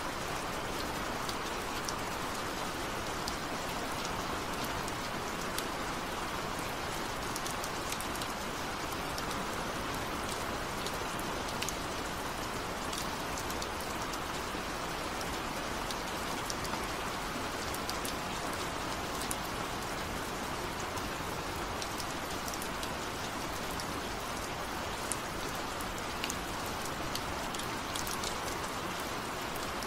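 Steady rain falling, a constant hiss with scattered crisp drop ticks.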